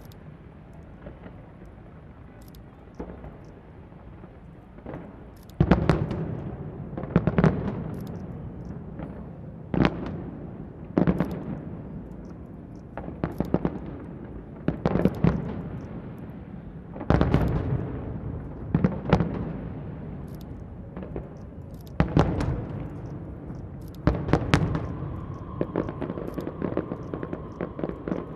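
Aerial fireworks bursting: after a quiet start, about ten loud booms a second or two apart, each trailing off into a low rumbling echo. A steady tone comes in near the end.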